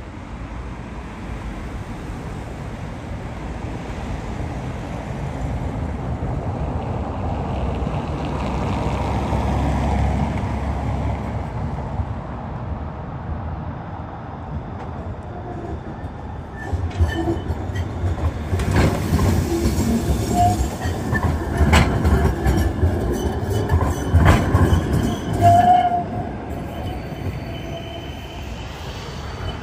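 A tram running on its track: a steady low rumble that swells and fades in the first half. From a little past halfway the wheels make a run of clicks and knocks, with a couple of short squeals.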